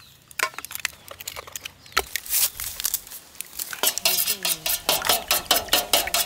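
Prawns being mixed with egg and spice powders in a metal vessel: clinking and clattering against the metal and wet stirring. The strokes get quicker and louder about two seconds in and go on fast and fairly even from about four seconds.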